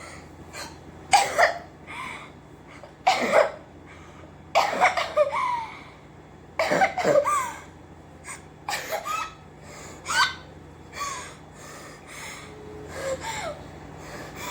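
A girl's feigned coughing fit for a prank: a series of harsh coughs, about one every one to two seconds.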